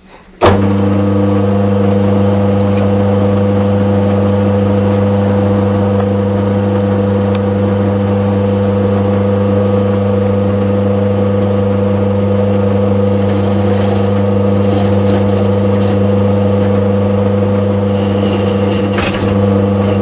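Pillar drill motor switched on about half a second in, then running steadily as a makeshift lathe spinning a dowel. From about two thirds of the way through, a chisel scrapes intermittently against the spinning wood.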